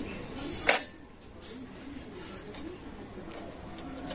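A single sharp metallic clank about a second in, with a brief ring, as a steel plate of bowls is settled onto the metal stand inside a steel kadai. Fainter handling noise follows.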